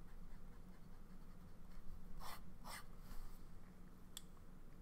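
Fountain pen nib scratching across paper in a few short strokes over a faint steady hum.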